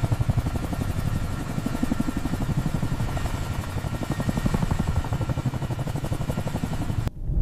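Helicopter rotors beating rapidly and steadily, with a steady whine above them. The sound cuts off abruptly near the end.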